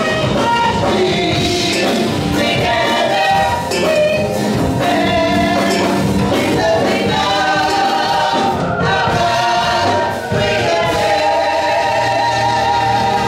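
Gospel worship music with voices singing, in a choir-like blend.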